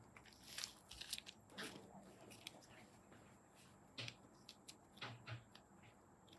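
Faint sticky clicks and squishes of slime being handled and pressed, a few short irregular ones each second.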